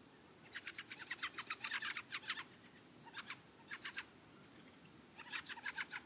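Fieldfare giving its harsh chuck-chuck call: a fast rattling run of chacking notes, about eight a second, from about half a second to two and a half seconds in, a few single notes in the middle, and a second run near the end.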